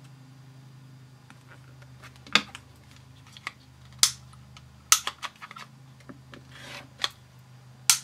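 Rotary cutter trimming quilt fabric along an acrylic ruler on a cutting mat: several short, sharp scrapes and clicks, with a longer rasping stroke about seven seconds in, over a steady low hum.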